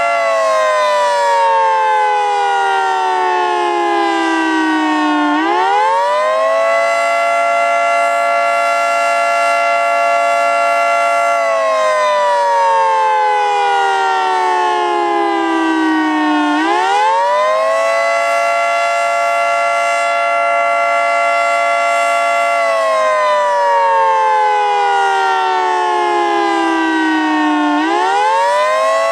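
Federal Signal 2T22 dual-tone outdoor warning siren sounding the Attack signal, a rising and falling wail. It winds down, climbs quickly back to full pitch, holds its chord for about five seconds, then slides down slowly over about five seconds. This happens twice, and a third rise starts at the very end.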